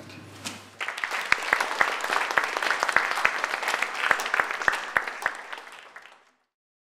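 Audience applauding. The applause starts about a second in, then fades and cuts off near the end.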